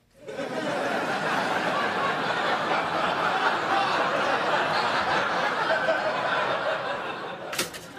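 Studio audience laughing at a punchline: the laughter swells up almost at once, holds steady for several seconds, then dies away near the end.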